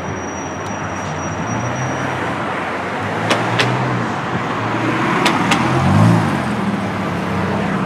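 Road traffic on a city street: cars passing close by, one engine note swelling about six seconds in. Two pairs of sharp clicks come midway.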